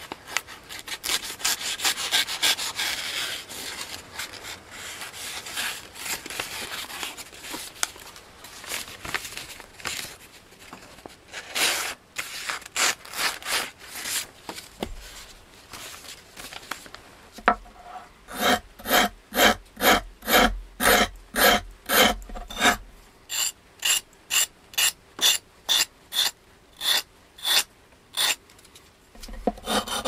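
Paper rustling and crinkling for roughly the first half, then a sandpaper-covered stick rubbed back and forth along the edge of a Schrade F57 knife blade in steady strokes, about two a second, with a brief pause partway through. This is the first step of regrinding the edge to a one-sided convex bevel.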